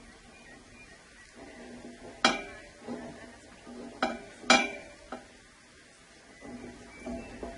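Sharp clinks and knocks of hard objects being handled. One loud knock comes about two seconds in, then two more in quick succession about four seconds in, with fainter clatter between.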